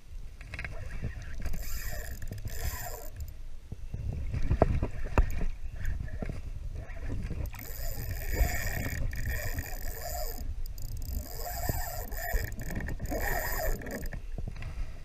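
Shimano Sustain spinning reel being cranked in several bursts of a few seconds each, its gears whirring, while a hooked fish is fought on a bent rod. Under it runs a steady low rumble of water and wind on the microphone, with a few knocks about five seconds in.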